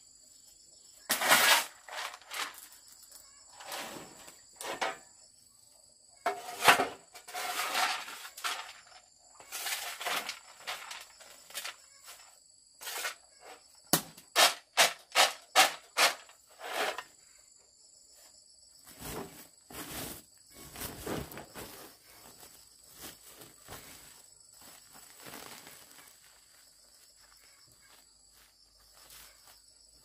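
Insects trilling steadily in the background, overlaid by irregular bouts of knocking and rustling, including a quick run of about six evenly spaced knocks midway.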